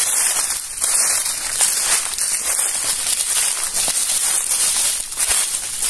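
Footsteps crunching and rustling through dry leaf litter on a forest trail, swelling about once a second with each step, over a continuous high hiss.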